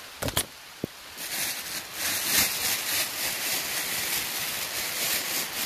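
A few knocks of a phone being handled, then from about a second in a dense, crackling hiss of cloth rubbing over the microphone as the phone is pressed against a shirt, over heavy rain.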